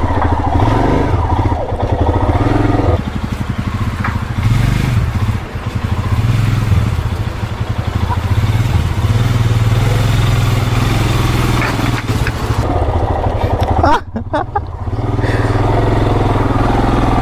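Motorcycle engine running while riding, a steady low drone that dips briefly about 14 seconds in.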